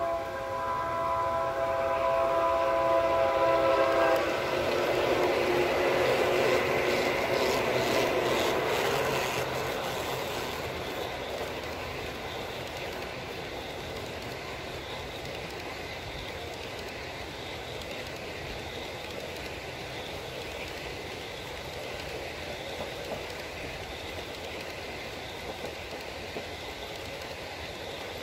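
G scale model locomotive sounding a multi-note diesel horn for about four seconds as it approaches. The train then rolls past on the track, its wheels clicking over rail joints, and the double-stacked container cars follow with a steadier, quieter rolling noise.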